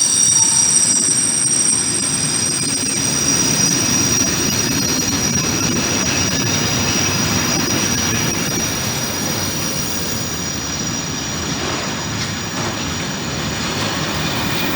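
Freight train rolling through the station, a steady rumble of wagons on the rails with high-pitched wheel squeal that fades away about two-thirds of the way through.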